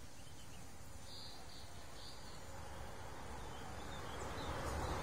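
Outdoor garden ambience: a few short, high chirps about a second in, over a steady low rumbling noise that grows louder near the end.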